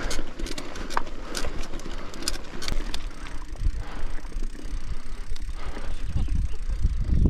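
Mountain bike rolling over rough dirt and grass: a steady low tyre rumble with many rattling clicks from the bike, densest in the first few seconds and thinning out after that.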